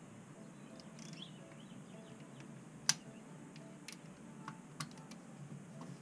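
A ratchet and socket working on engine bolts, giving a few sharp, scattered metal clicks and clinks, the loudest about halfway through, over a faint low hum.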